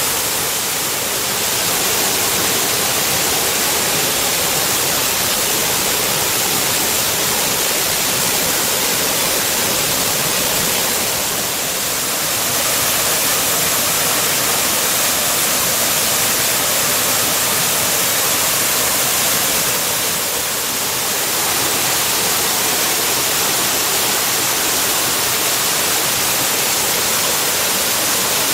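Waterfall pouring steadily: a dense, even rush of falling water.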